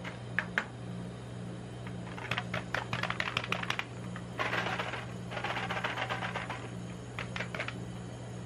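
Gloved fingertips tapping quickly on a Milo dessert cup, then the rustle and clicks of the cup being picked up, turned over and handled. A steady low hum runs underneath.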